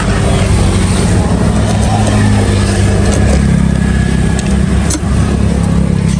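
Steady low engine rumble of motorbikes and other traffic on the street, with a few light clicks.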